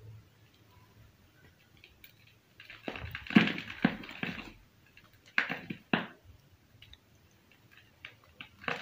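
A black-dyed slab of reformed gym chalk being snapped and crumbled by hand. A run of dry crunches comes about three seconds in, then two sharp cracks half a second apart, and more crunching near the end.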